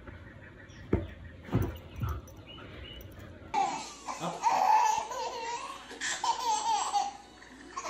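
A few soft thumps, then from about halfway a baby laughing again and again.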